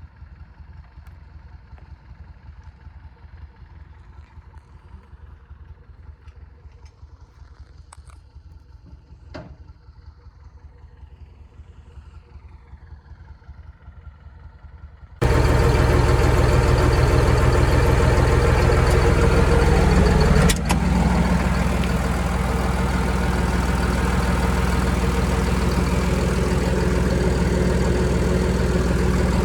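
A faint low engine rumble, then about halfway through an abrupt jump to a heavy machine's engine running loud and steady at close range, with a brief dip a few seconds later.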